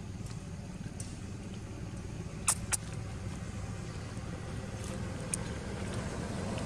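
Steady low rumble of a motor vehicle engine running, with two sharp clicks close together about two and a half seconds in.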